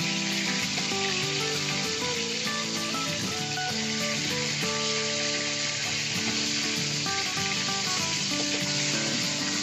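Pieces of tuna frying in hot oil, a steady, even sizzle with no break, under background music.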